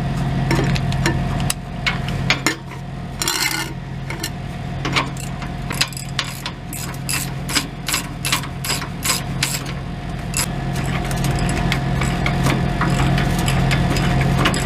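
Hand socket ratchet clicking in runs as a bracket bolt is worked loose, with one faster even run of about three or four clicks a second in the middle. A steady low hum runs underneath.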